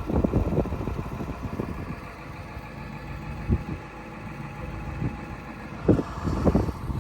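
New Holland 555E backhoe loader's diesel engine running steadily at idle, with irregular low thumps and knocks over it, the loudest near the start and about six seconds in.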